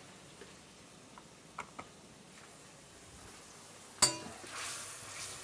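Mushrooms in beef stock simmering quietly in a stainless steel frying pan, with a few small pops. About four seconds in, a utensil strikes the pan with a sharp, ringing clink, and scraping as the stirring starts follows.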